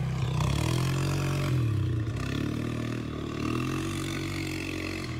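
ATV engine revving up and down as it is ridden, its pitch rising and falling every second or two. Loose gravel crunches underfoot near the start.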